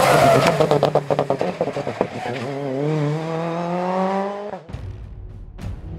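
Rally car passing close at full throttle: a four-cylinder turbo Citroën C3 rally car's engine with a rapid run of sharp pops as it goes by, then its note climbing as it accelerates away. It cuts off suddenly near the end into a fainter, lower engine rumble.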